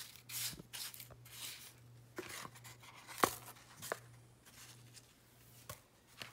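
Plastic spoon scraping and stirring through breadcrumbs in a paper bowl, coating pieces of bass fillet: a run of short rough swishing strokes, with a sharp click about three seconds in and a few lighter clicks later, over a low steady hum.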